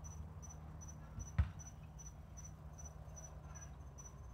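An insect chirping steadily in the background, a high short chirp repeating evenly about two to three times a second. A single sharp knock cuts in about a second and a half in.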